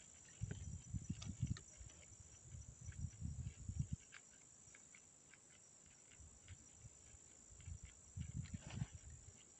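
Insects chirring in a steady, faint high drone, with clusters of low rustles and knocks close to the microphone during the first few seconds and again near the end.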